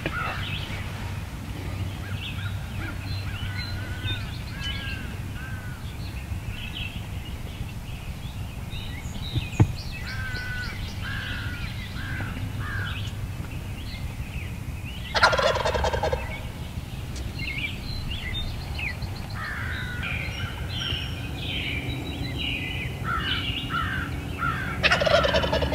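Wild turkey tom gobbling twice, about fifteen and twenty-five seconds in, with small songbirds chirping throughout and a single sharp click near the middle.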